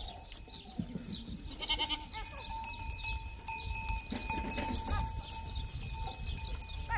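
A herd of goats bleating as they walk past, with a steady ringing tone running under the calls.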